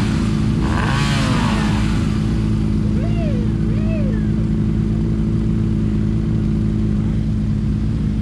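A motor vehicle engine running at a steady speed, without revving. Voices are heard briefly in the first second or so, and there are two short rising-and-falling calls about three and four seconds in.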